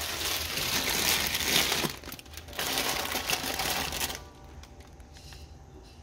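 Plastic instant-noodle packets crinkling and rustling as they are handled and set into a clear acrylic organizer bin, in two spells, the second ending about four seconds in.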